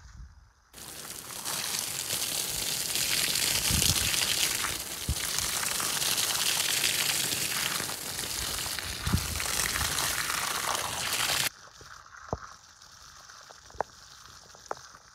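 Loud steady rush of spraying water, starting abruptly just under a second in and cutting off suddenly about eleven seconds in, followed by a few sharp ticks.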